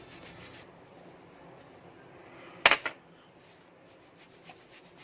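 Faint rubbing and handling noises as a small watch movement part is wiped and worked on a tissue, with one sharp click about two and a half seconds in and a few light ticks near the end.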